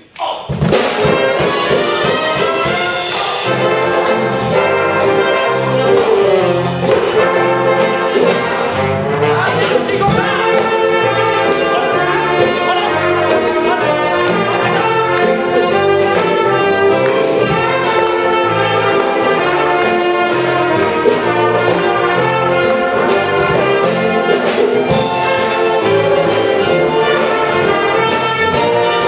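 Wind band of saxophones, flutes, trumpets and trombones strikes up together just after a near-silent moment, then plays a French popular-song arrangement at full volume with a steady beat and a walking bass line.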